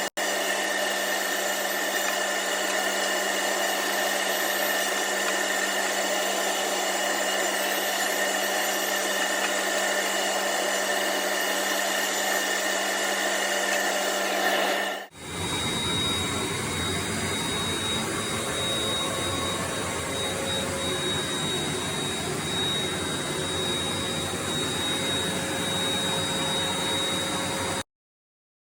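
Mafell Erika saw running at a steady pitch, a whine over a rushing noise. About halfway through the sound abruptly changes character, then cuts off a second before the end.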